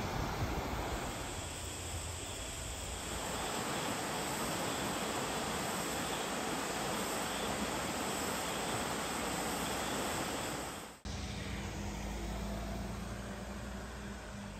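Shallow mountain stream rushing over rocks in white-water riffles, a steady hiss of water. About eleven seconds in it cuts off abruptly to a lower steady rumble with a faint hum.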